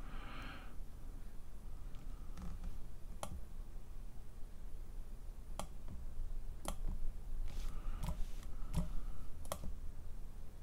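Amiga 1200 keyboard keys being pressed one at a time to step through a menu: about six sharp, separate clicks, irregularly spaced, over a faint low hum.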